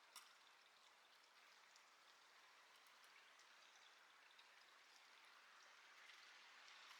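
Near silence: a faint steady hiss with scattered light ticks and one sharp click just after the start.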